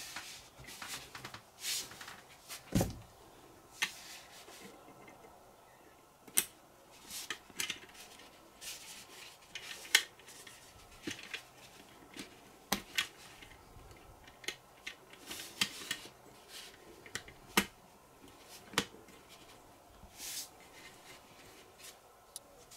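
Plastic Lego Technic beams, pins and gears being handled and pressed together by hand: irregular sharp clicks and snaps with light rubbing between them, and a duller knock about three seconds in.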